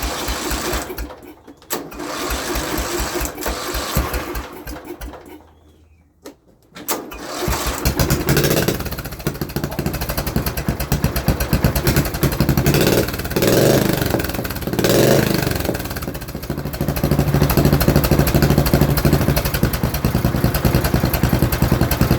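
Lawnmower engine fitted with a homemade kidney-bean-can muffler, starting up. It fires briefly and dies twice, then catches about seven seconds in. It is revved up and down a few times, then runs steadily.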